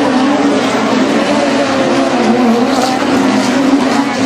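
Engines of several short-course off-road race trucks running hard as they race around the dirt track, a steady loud engine noise whose pitch wavers up and down as the drivers get on and off the throttle.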